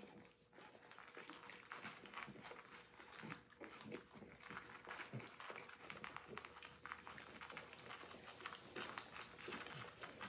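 French bulldog licking soft food off a silicone lick mat: a quick, irregular run of wet licking and smacking clicks.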